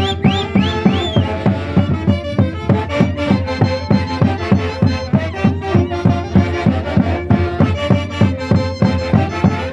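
Andean Santiago festival music played by a band, with a fast steady beat of about four strokes a second under sustained melody notes. A few swooping high notes sound in the first second.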